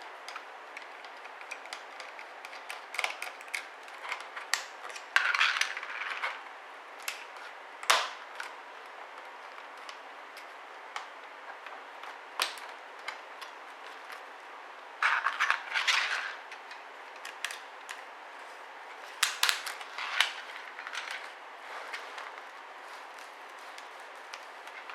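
Small clicks, taps and scraping of plastic and metal parts as a ThinkPad R61 laptop's hard drive is worked out of its bay. Louder scraping comes about five, fifteen and nineteen seconds in, over a steady background hiss.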